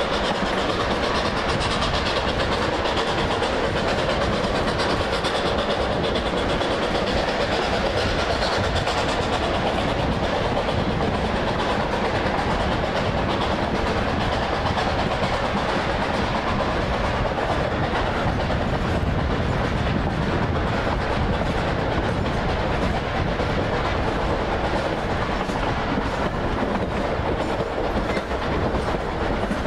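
Narrow-gauge train rolling along the track: a steady, unbroken noise of wheels on rails.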